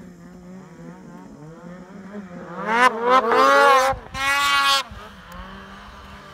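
Snowmobile engines revving hard as the sleds carve through deep powder. A steady drone rises into a climbing whine from about two seconds in, stays loud for about two seconds with a short dip in the middle, then falls back to the drone near five seconds.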